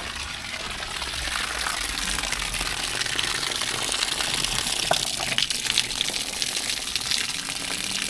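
Water gushing and splashing steadily, from something left running unattended.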